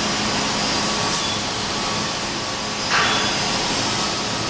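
Steady machine-like rushing noise with a low hum under it, and a brief louder rustle about three seconds in.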